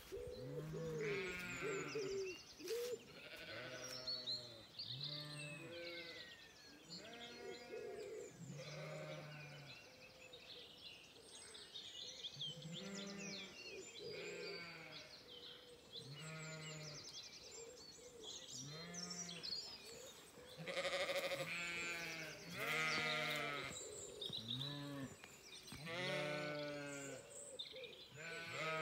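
A flock of Zwartbles ewes and lambs bleating, with deep and higher-pitched calls overlapping almost continuously, about one a second. The calls are loudest a little past two-thirds of the way through.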